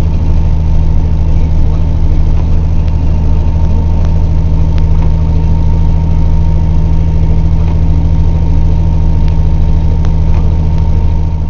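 Truck engine heard inside the cab while driving on a snowy road: a loud, steady low drone with a thin, steady whine above it.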